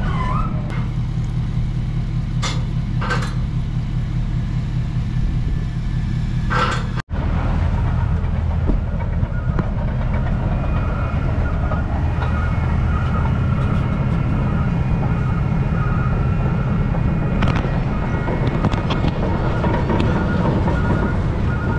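Heavy truck engine running steadily at a low rumble, with a few sharp knocks in the first seconds and a momentary break about seven seconds in.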